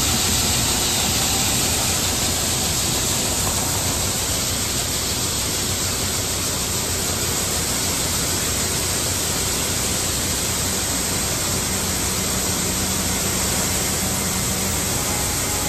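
Shelled corn pouring from a grain cart's unloading auger into a semi trailer: a loud, steady rushing hiss over a low rumble of the unloading machinery.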